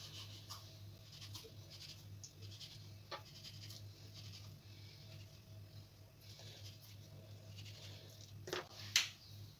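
A small round cutter pressed through soft dough and onto a granite worktop, giving faint scrapes and a few short taps, the loudest near the end, over a low steady hum.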